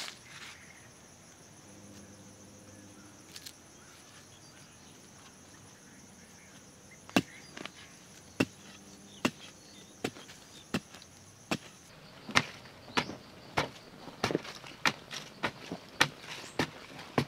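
Wooden stick striking hard, dry earth in sharp thuds as ground is dug by hand: spaced strokes start about a third of the way in, then quicken to about two a second near the end. A steady high insect drone runs behind the first strokes and stops partway through.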